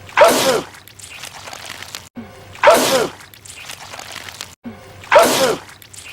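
A man sneezing loudly three times. Each is a sharp 'achoo' that falls in pitch, and the identical sneeze repeats about every two and a half seconds as a looped clip.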